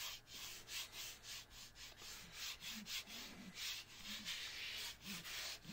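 Palms rubbing back and forth over the surface of a new 3D-printer build plate, a run of quick brushing hisses about three strokes a second.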